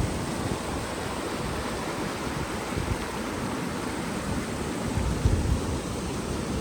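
A fast-flowing river rushing steadily, with low rumbles around five seconds in.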